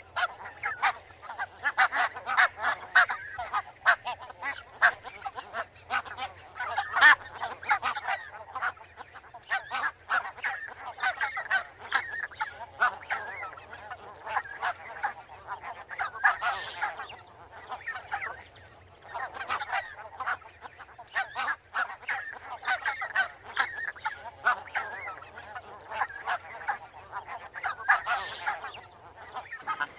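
A flock of barnacle geese calling, many short honks and yaps overlapping continuously.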